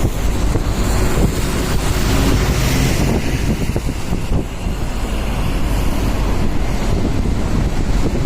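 Wind buffeting the microphone over the rumble of a moving vehicle, a loud, steady roar.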